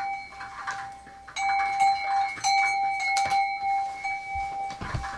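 A steady, bell-like ringing tone held at one pitch, dipping about a second in and then sounding again, with a few light knocks over it.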